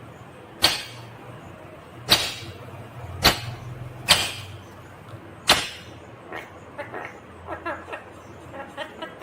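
Indian ringneck parakeet giving five sharp, loud screeches about a second or so apart, then a string of softer short chattering calls through the last few seconds.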